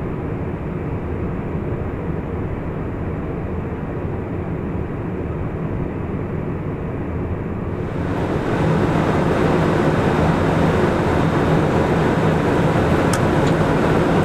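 Steady flight-deck noise of an Airbus A350-900 on final approach: an even rush of airflow and engine noise. It sounds muffled at first, then about eight seconds in becomes fuller and a little louder, with a steady low hum.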